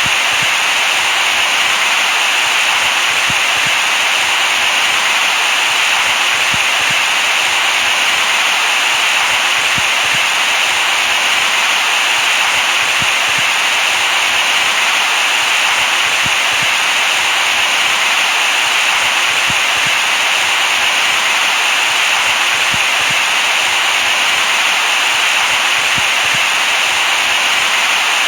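Steady white noise used to soothe a crying baby to sleep: an even, unbroken hiss at a constant level, strongest in the upper middle range and thin in the bass.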